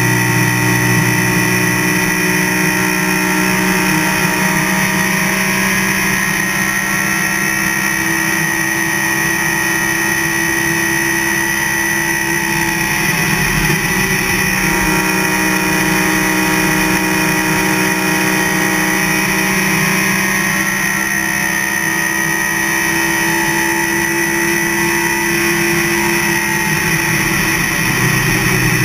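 NASCAR racing V8 engine running hard at speed around an oval, heard loud from inside the cockpit. Its note holds fairly steady, dipping slightly in pitch a couple of times and climbing back.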